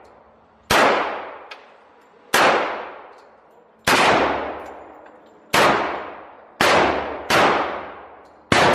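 Seven pistol shots fired one at a time at an uneven pace, each a sharp crack followed by a long echoing tail in the enclosed range.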